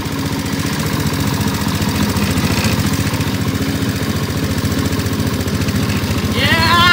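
Small engine of an antique-style ride car running with a steady, rapid, even putter. Near the end a person's voice rises in pitch over it.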